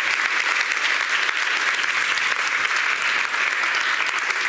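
A large audience applauding steadily, many hands clapping at once.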